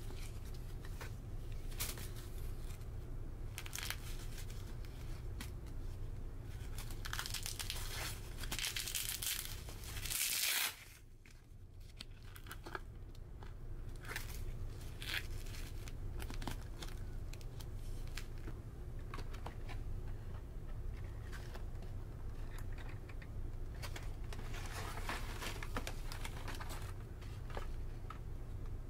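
Hands handling plastic and paper packaging: repeated crinkling and tearing, loudest about seven to ten seconds in, where it cuts off sharply. A steady low hum from the ferry runs underneath.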